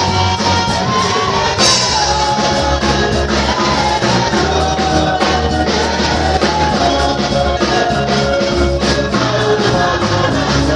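Choir singing with drum kit and bass accompaniment, a steady beat under a held melody.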